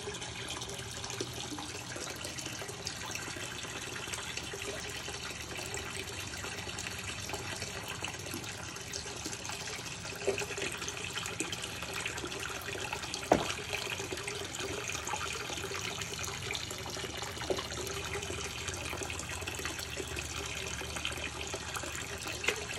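Steady rush and trickle of circulating water in a large aquarium, the flow stirring the surface, with one sharp knock about halfway through.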